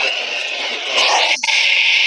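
Heavy static hiss from a weather alert radio on a weak NOAA Weather Radio signal, the broadcast barely audible under it. The hiss cuts out for an instant about halfway through.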